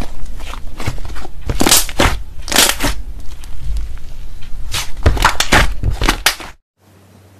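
Thick green slime being stretched, folded and squeezed by hand, giving a dense run of sharp clicks and pops; it stops abruptly about six and a half seconds in.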